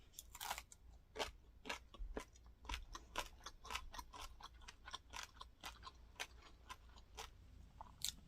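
Chewing crunchy fried rice crust with the mouth close to the microphone: a steady run of short, sharp crunches, about three a second.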